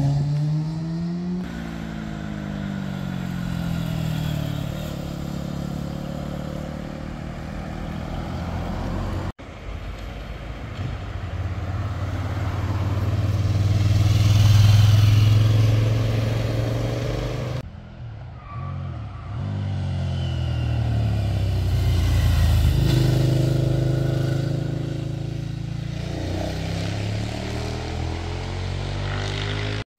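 Motorcycles riding past one after another through hairpin bends, their engines revving up and down with gear changes, each growing louder and fading as it goes by. The loudest pass, about halfway through, is an adventure motorcycle going close by. The sound changes abruptly a few times between passes.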